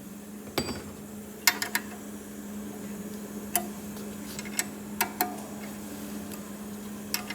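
Steady electrical hum of an ultrasonic wire splicing machine standing switched on, with scattered sharp clicks and taps from hands working on it.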